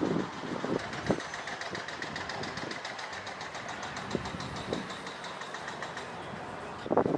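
An engine running steadily with a fast, even ticking, and a few faint knocks.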